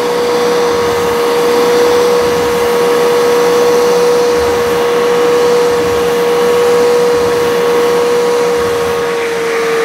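Bissell Little Green ProHeat portable spot cleaner's suction motor running with a steady whine and rushing air, the hose tool sucking up water from the carpet in dry-only mode, without spraying. Right at the end the motor's pitch starts to drop as it winds down.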